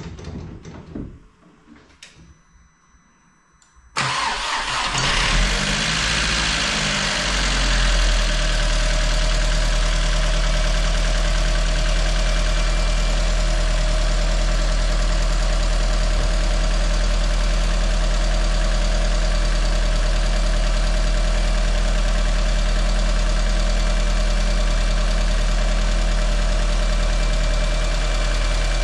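Rebuilt VW 1.8T turbocharged four-cylinder engine starting on its first run after the rebuild: a few faint clicks, then it fires about four seconds in, runs unevenly for a few seconds and settles into a steady idle.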